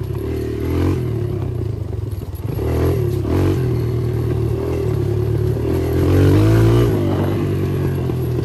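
2019 Kawasaki KLX140's single-cylinder four-stroke engine running under way with no baffle in its exhaust, its pitch rising and falling as the throttle is worked. It dips briefly a little over two seconds in, then picks up and is loudest around six to seven seconds in.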